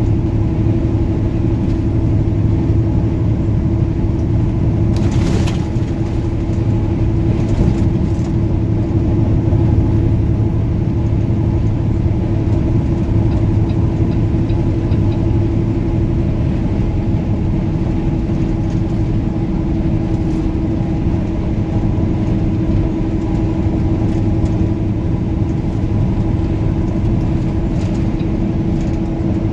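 Semi truck's diesel engine and road noise heard inside the cab while cruising on the highway: a steady low drone with a hum holding one pitch. A short burst of hiss about five seconds in.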